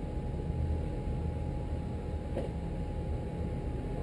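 Sea Ray 330 Sundancer cruiser's engines running at slow speed, a steady low rumble with a faint constant hum above it.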